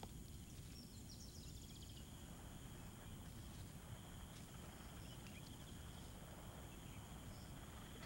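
Faint forest ambience: a steady, high-pitched insect drone, with a brief rapid run of faint high chirps about a second in.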